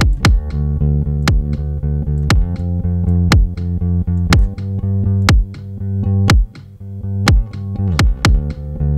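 A bass line playing with a kick drum hitting about once a second. The kick feeds the sidechain of a Bitwig Dynamics compressor on the bass, so each kick pulls down the bass's volume.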